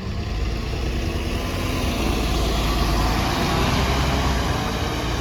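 Alexander Dennis Enviro 400MMC double-decker bus running on the move, with a faint whine rising in pitch as the sound builds, then easing near the end. Its loud axles and turbo whine are taken as signs of a worn-out bus.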